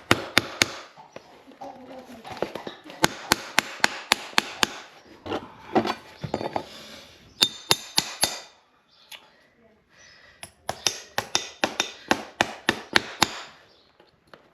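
A farrier's hammer tapping in quick runs of sharp strikes, about five a second, with short pauses between runs.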